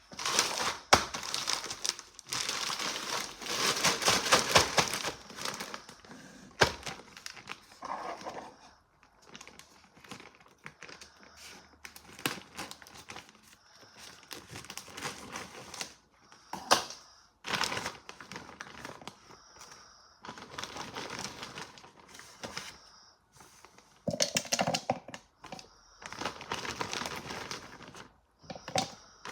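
Packaging being unwrapped by hand: irregular crinkling and tearing, with a few sharp clicks and knocks between quieter gaps.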